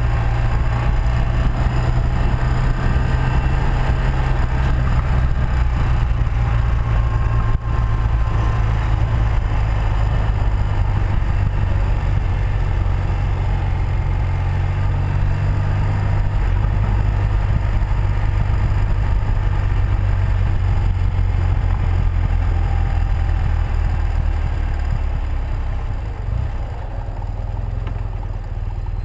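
1984 BMW R100RS's air-cooled flat-twin engine running under way, with wind and road noise over it. The engine note shifts pitch about halfway through and gets quieter in the last few seconds.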